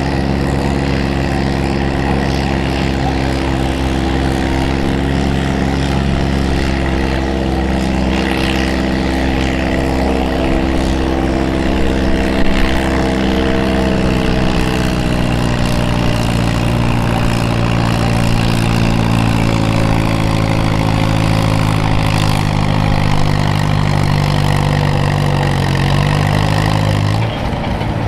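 Vintage farm tractor's engine running under full load as it drags a weight-transfer pulling sled, its pitch slowly sinking as the engine is pulled down by the building load. About a second before the end the engine note drops away suddenly as the pull ends.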